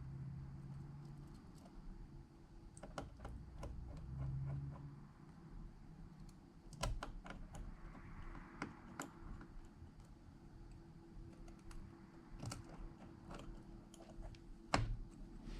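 Irregular light clicks and taps of small repair tools and phone parts being handled on a workbench during iPhone disassembly, with a sharper click about two thirds in and the loudest one near the end, over a faint steady hum.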